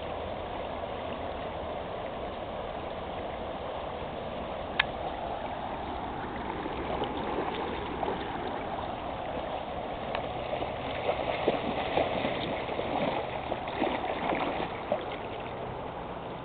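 Shallow stream flowing steadily. From about ten seconds in come irregular splashes of feet wading in the water, and one sharp click sounds about five seconds in.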